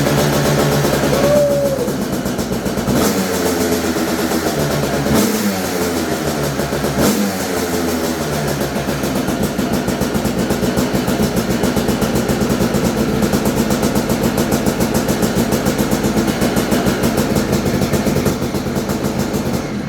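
Freshly rebuilt Suzuki RM250 two-stroke single-cylinder engine running on its first start-up. It is blipped up in revs about three times in the first several seconds, then settles into a steady, rapid idle.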